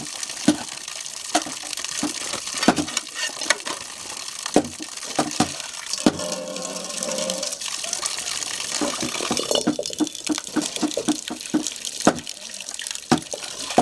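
Water running from an outdoor standpipe tap and splashing onto steel plates and into a wok as they are rinsed, with frequent clinks and knocks of the metal dishes being handled.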